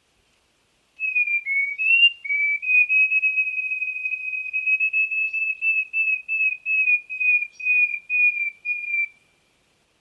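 A bird's clear whistled song on one pitch. It opens with a few slurred notes that dip and rise, holds a steady wavering whistle, then breaks into separate notes about two a second before stopping.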